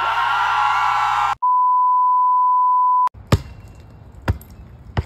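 A drawn-out vocal wail cuts off, followed by a steady electronic beep tone for under two seconds. After an abrupt cut, a basketball bounces three times on wet pavement, about a second apart.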